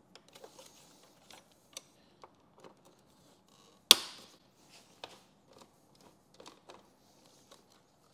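Small metallic clicks and ticks of a 3/16 Allen key being worked into and turning out the bolts that hold a motorcycle radio in its metal bracket, with one sharp, louder click about four seconds in.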